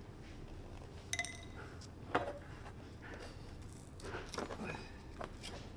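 A few small metallic clinks and knocks as parts and tools are handled while working on a convertible top. There is a short ringing clink about a second in, the loudest knock about two seconds in, then several lighter taps.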